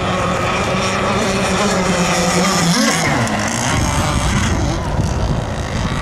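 Gas-powered RC catamaran's modified Zenoah 29cc two-stroke engine running flat out with a steady buzzing note; about three seconds in the pitch wavers up and down, then the sound turns rougher and more broken.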